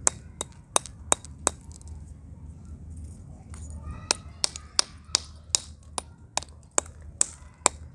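A metal pestle pounds broken terracotta clay-pot pieces in a small stone mortar, crushing them into red grit. Sharp knocks come about three a second, stop for a couple of seconds after a quick run, then start again and keep a steady beat.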